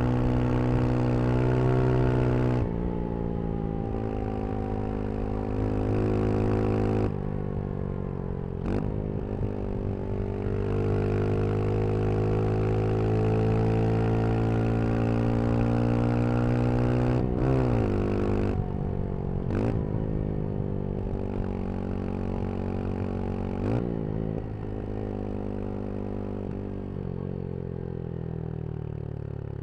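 Brixton Crossfire 125 XS's 125 cc single-cylinder engine pulling under load while riding, its pitch climbing and then dropping sharply at several gear changes, with a few brief rev swoops in the middle. Near the end the revs and level fall away as the bike slows.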